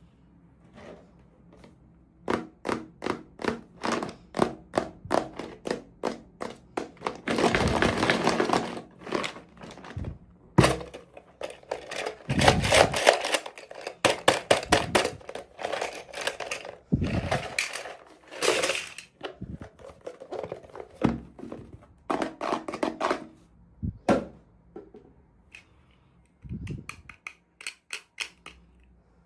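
Toy packaging being handled and opened by hand: a quick run of sharp clicks and taps, then several longer scratchy rustling bursts, with scattered clicks near the end.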